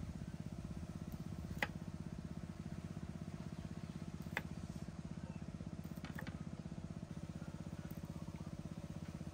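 A small engine runs steadily with a fast, even pulsing drone. Over it a chef's knife knocks a few times on a wooden chopping board as it cuts through calamansi, with two knocks close together about six seconds in.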